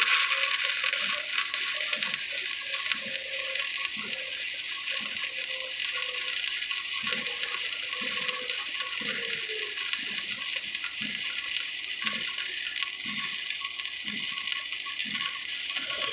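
Electric welding arc crackling and sputtering steadily as a weld bead is laid on a steel tank's ring support.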